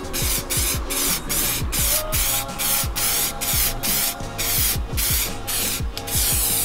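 Aerosol spray paint can hissing in quick short bursts, about two to three a second. Background music with a beat plays underneath.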